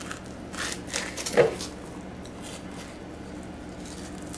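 Fillet knife slicing and scraping along a fish's rib bones, a few short scrapes in the first second, with a brief vocal sound about a second and a half in. A steady low hum runs underneath.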